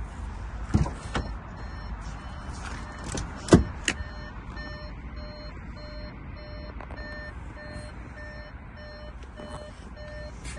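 Audi A5 coupé door being opened and its seat handled, with a few clunks in the first four seconds, the loudest about three and a half seconds in. Then the car's electronic warning chime beeps steadily, about twice a second.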